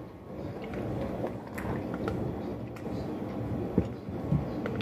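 Quiet eating sounds: a fork working food on a plate and chewing, with a few faint clicks and two soft knocks near the end, over a low steady background hum.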